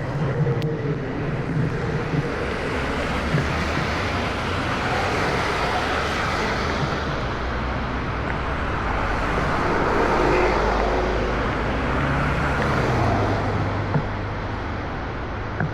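Road traffic noise: vehicle engines running with a steady low hum and a continuous rush of road noise that swells a little in the middle.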